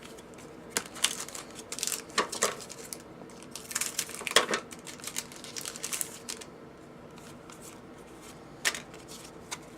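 Hockey trading cards being handled: scattered rustling, sliding and light clicks. They are busiest between about one and five seconds in, with one more click near the end.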